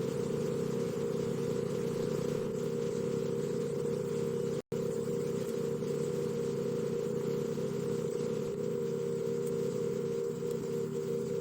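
Steady buzzing hum of honeybees, one even drone that cuts out for a split second about halfway through.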